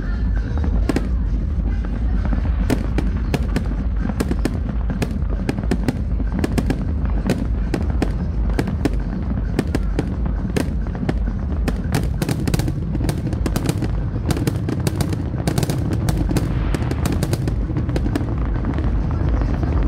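Fireworks display: a rapid, uneven run of sharp bangs and crackles over a steady deep rumble, growing denser in the second half.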